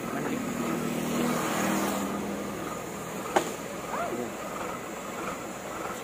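A vehicle engine runs steadily, and its hum drops away about two and a half seconds in. A single sharp click comes about three and a half seconds in.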